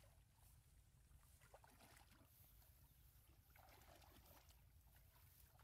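Near silence: only a faint, steady low rumble.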